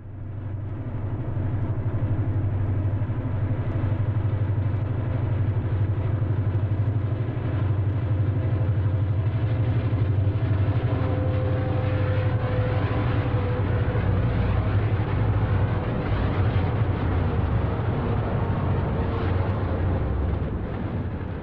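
GE U50C diesel-electric locomotives hauling a freight train, their engines giving a steady low rumble with a faint held tone about halfway through.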